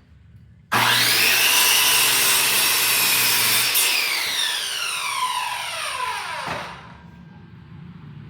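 Handheld circular saw starting with a rising whine and running at full speed through a cut in a wooden board for about three seconds. It then winds down with a falling whine once the trigger is released.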